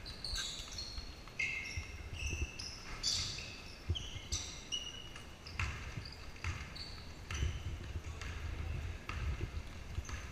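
Basketball game on a hardwood court: a basketball bouncing and thudding, with many short, high squeaks from sneakers on the floor, scattered irregularly through the play.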